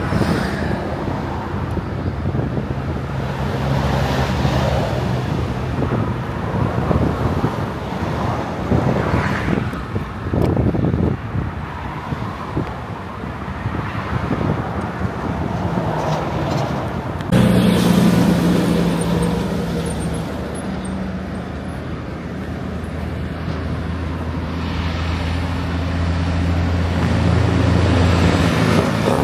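Road traffic with a diesel semi truck's engine running as the tractor-trailer drives along the road. A little past halfway the sound jumps abruptly louder, and the truck's low engine note swells toward the end.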